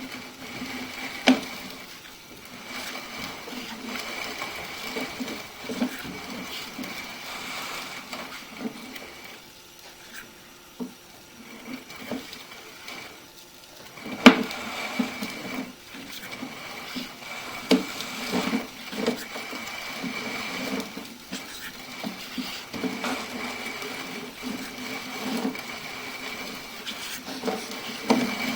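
Sewer inspection camera and its push cable being fed through a cast iron sewer line: irregular knocking and rattling of the cable and camera head, over a steady high whine that stops for a few seconds near the middle. A single sharp knock about halfway through.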